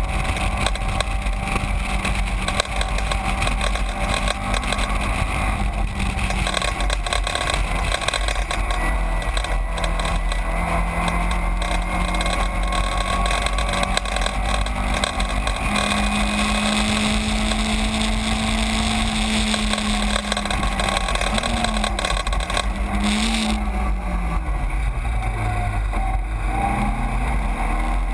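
Caterham 7 race car engine running hard at racing revs, heard onboard over a constant rush of wind and road noise. The engine note holds steady for most of the time, then falls and rises again several times near the end.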